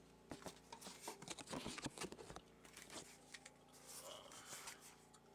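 Faint rustling, scraping and clicking of close handling, as a hand and camera brush and shift against the dirt of a crawl tunnel, most of it in the first three seconds, over a faint steady hum.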